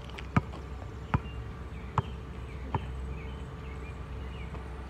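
A basketball bouncing four times, about one bounce every 0.8 s, stopping about three seconds in, over a faint steady hum.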